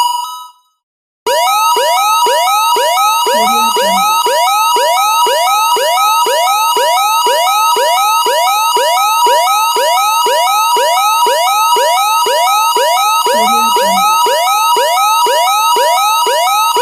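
Electronic emergency-alert alarm tone: fast rising chirps, about three a second, over a pulsing two-note beep near 1 kHz. It cuts off just after the start and starts again about a second later.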